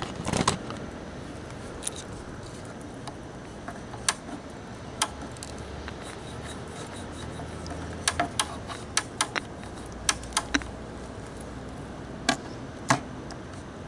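The speaker of a 1970s KMC black-and-white tube TV crackling over a faint steady hiss and low hum: sharp, irregular pops, about fifteen of them, bunched up past the middle. The crackles are the set's first signs of life after being powered up.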